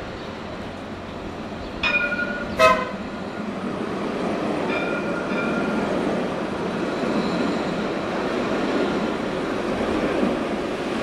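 Jerusalem Light Rail tram (Alstom Citadis) sounding two short horn toots about two seconds in and a fainter one around five seconds. It then rolls past close by with a steady rumble of steel wheels on the rails.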